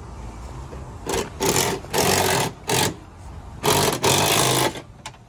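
A power tool run in six short bursts within about four seconds, each starting and stopping sharply.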